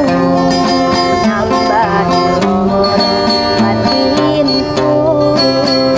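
A woman singing a Javanese pop song live to a strummed acoustic guitar, with a steady beat under the melody.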